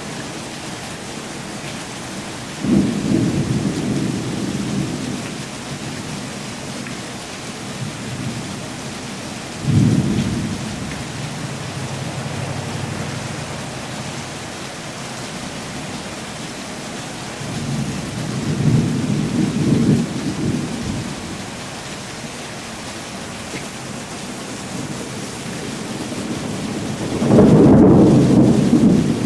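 Thunder rolling four times over a steady hiss of light rain, the loudest roll near the end.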